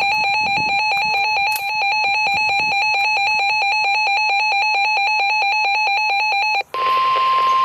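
Electronic weather-alert alarm warbling rapidly in an even, ringing pulse, signalling an incoming emergency alert. It cuts off near the end, and after a brief gap the steady single-pitch NOAA Weather Radio warning tone (about 1 kHz) begins.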